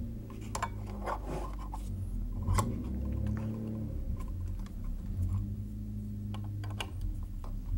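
Scattered small clicks and scrapes of hands and an open-end wrench working the plastic hose fittings of an in-line air filter as it is taken out, over a low steady hum.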